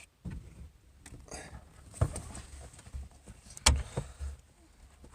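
Scattered knocks and clicks of a screwdriver and hands working at a plastic interior trim panel in a Ford E-350 van. There are two sharper knocks, about two seconds in and just before four seconds, with lighter taps and low thumps between.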